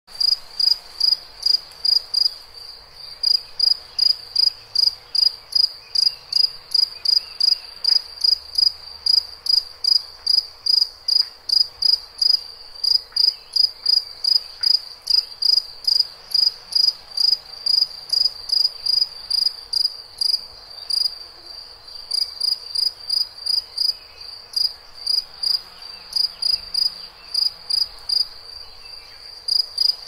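A cricket chirping steadily: short, high, even-pitched chirps repeating about two to three times a second, with a couple of brief pauses.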